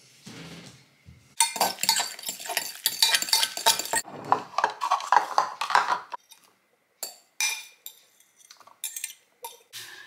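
A spoon scraping and clinking against a glass mixing bowl as scrambled egg is scooped out, dense and busy for several seconds. After a short pause come a few scattered light knocks.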